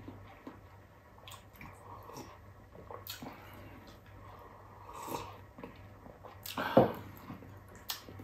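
Sipping hot sinigang broth from a glass: soft slurps, swallows and mouth clicks, with one louder, brief slurp a little before seven seconds in.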